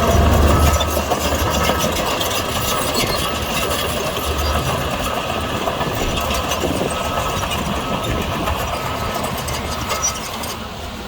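Heavy diesel engine of earthmoving machinery running steadily, with a swell of deep rumble in the first second and another briefly around four seconds in.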